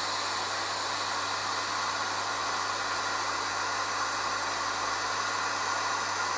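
Hot-air tool blowing steadily, heating the Apple Watch to soften the adhesive that holds its display, with a faint steady hum under the rush of air.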